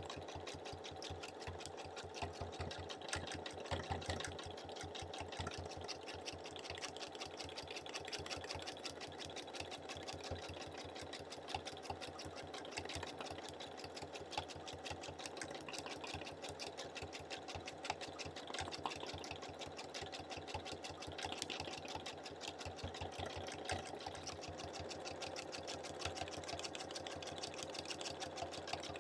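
Domestic sewing machine stitching steadily during free-motion quilting, the needle and hopping foot going up and down through the quilt in a fast, even run of strokes.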